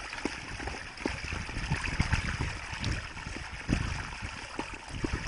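Water sloshing and splashing in shallow water, with many irregular low thumps and knocks.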